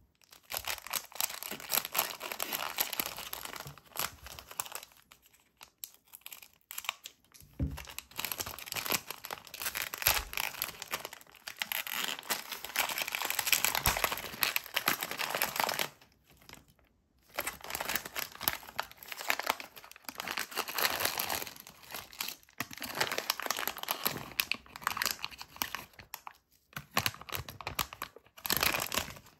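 A printed plastic LEGO minifigure blind bag crinkling and tearing as it is handled and ripped open, then the clear inner bag of parts rustling as it is pulled out. It comes in bursts of several seconds with short pauses.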